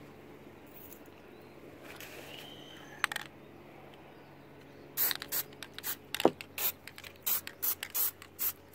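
Aerosol can of Plasti Dip rubber coating being shaken, its mixing ball clacking about three or four times a second through the second half. A short spray hiss comes near two seconds.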